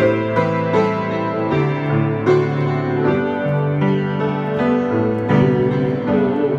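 Piano or electric keyboard playing a slow hymn in sustained chords, with new chords struck every half second or so.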